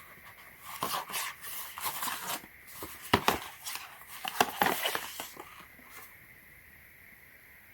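Product packaging being handled and opened: irregular rustling, tearing and scraping with sharp clicks and taps for about five seconds, then it stops.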